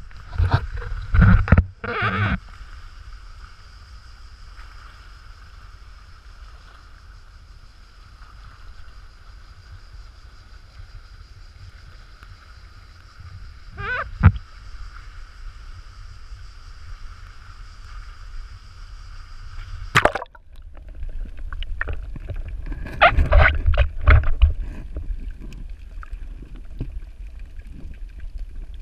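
Muffled water sloshing and splashing against an action camera's waterproof housing as it moves between the surface and underwater. There are loud splashes in the first couple of seconds, a faint steady hum with two sharp knocks in the middle, and irregular sloshing and crackling in the last third.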